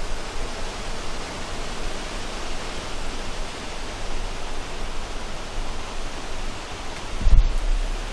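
Steady, even hiss of noise, with a brief low rumble about seven seconds in.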